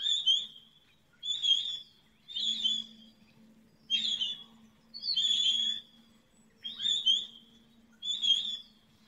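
Pine grosbeak calls: seven short high calls at an even pace, about one every second and a half, over a faint steady low hum.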